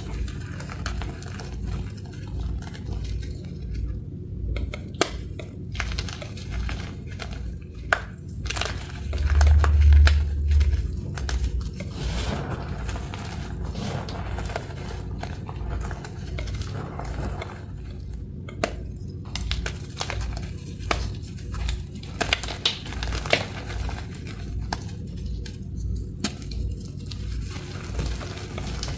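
Hands crushing and packing crumbly gym chalk powder in a plastic bowl: soft crunching and crumbling with many sharp crackles. A deep low rumble swells for a couple of seconds about a third of the way in.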